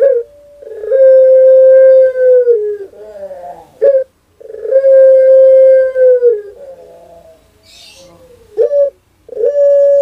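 Caged ring-necked dove cooing: three drawn-out, steady notes of about two seconds each, each stepping down in pitch at its end, about a second in, four seconds in and near the end, with short clipped notes between them.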